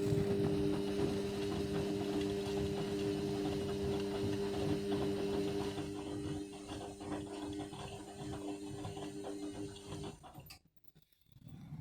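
Indesit washing machine running on a synthetics cycle: a steady motor hum with mechanical rattling, which stops abruptly about ten seconds in, with sound starting again just before the end.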